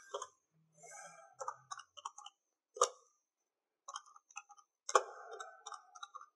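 Faint irregular clicks and taps of calculator keys being pressed to work out a percentage, with sharper clicks near three seconds and near five.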